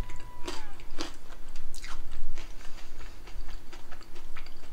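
Biting into and chewing a crisp, air-fried vegetable quesadilla, the browned tortilla crunching in a string of short crackles, thickest in the first two seconds.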